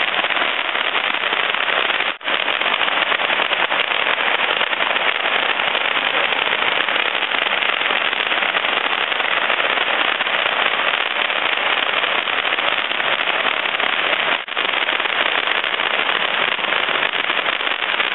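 Fireworks crackling in a dense, unbroken stream of rapid pops, broken only by two momentary pauses: one about two seconds in and one about three-quarters of the way through.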